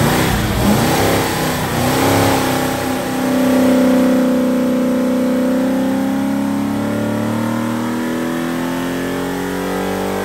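Ford Y-block V8, a 292 bored and stroked to 325 cubic inches and fed by twin Holley Sniper throttle-body fuel injection, running at high revs. The pitch moves quickly in the first few seconds, then the engine holds a sustained pull with the pitch climbing slowly.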